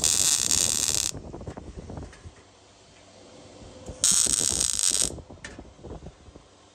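MIG welder laying two short tack welds on a sheet-metal wheel tub, each a crackling, sizzling burst about a second long: one at the start and one about four seconds in.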